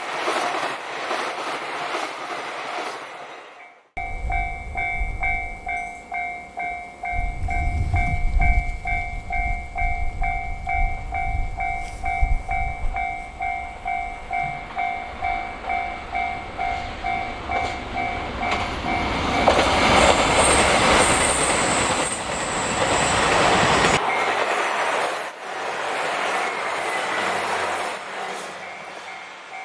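Railway level-crossing alarm ringing in rapid, even dings while a diesel train approaches and passes. The train's low rumble builds into a loud passing rush about two-thirds of the way through. The sound jumps abruptly twice, at edits.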